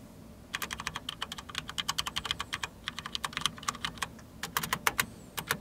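Fast typing on a Corsair K70 RGB MK.2 mechanical keyboard with Cherry MX switches: a quick run of key clicks begins about half a second in, breaks off briefly near the four-second mark, then picks up again.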